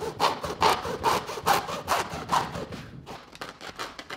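Hacksaw cutting through the heel of a Skechers Max Road 5 running shoe: quick back-and-forth rasping strokes, about four or five a second, getting lighter near the end.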